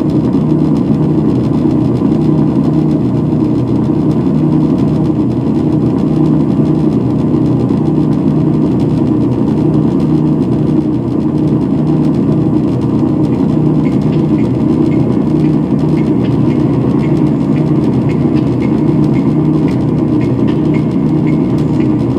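Loud, dense electronic noise drone from a live set on tabletop electronics: a steady, unbroken low mass of sound. A faint high ticking, about two a second, comes in about two-thirds of the way through.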